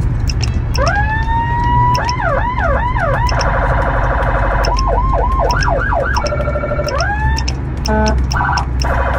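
Whelen electronic siren, run from an HHS3200 handheld controller through an SA314A speaker, switched through several tones in quick succession: a rising wail held about a second in, fast yelp sweeps, a rapid warble, more yelp, and short stepped hi-lo bursts near the end.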